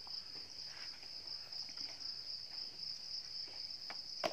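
Insects chirring steadily in a rural field, one continuous high-pitched trill, with a few faint knocks and taps.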